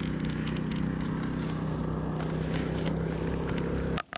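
A small engine running steadily with an even hum, cutting off abruptly near the end.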